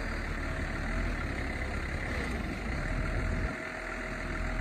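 Telescoping forklift's engine running steadily under load as the boom pushes hay blocks deeper into a dry van trailer. A faint steady whine joins in about three seconds in.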